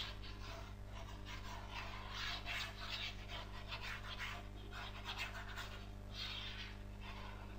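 Chalkboard eraser wiping in a quick run of brushing strokes, about two a second, with a short gap before a last stroke near the end. A steady low electrical hum runs underneath.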